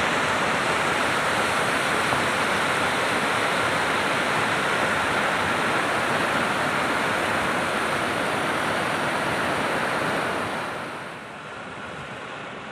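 Floodwater released through the dam's gates rushing and churning below them, a steady loud rush of water. About eleven seconds in it drops to a quieter flow of water running over rocks.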